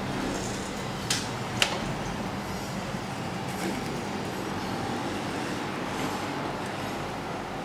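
Steady whoosh of a room fan, with two sharp clicks about a second and a half in.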